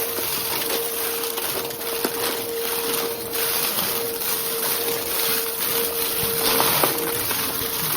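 Vacuum cleaner running with a steady motor whine, its hiss swelling and easing with fast back-and-forth strokes. Two sharp ticks, about 2 seconds in and near 7 seconds.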